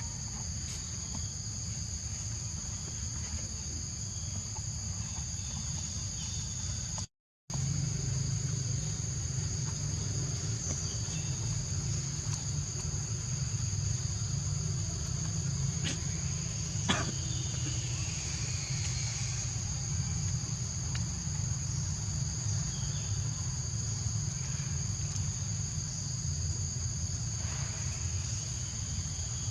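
Steady high-pitched drone of an insect chorus, over a constant low rumble of wind or handling noise. The sound cuts out completely for a moment about seven seconds in, and there is a single sharp click near the middle.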